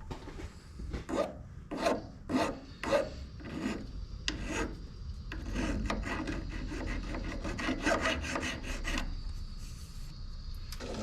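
Repeated rasping, scraping strokes, about two a second at first, then quicker and closer together from about five seconds in, stopping about nine seconds in.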